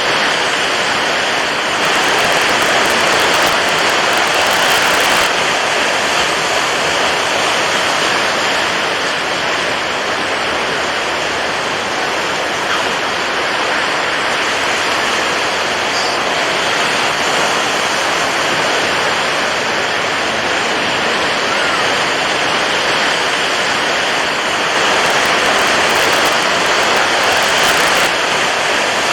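Water waves: a continuous, dense rush of water that swells slightly louder twice.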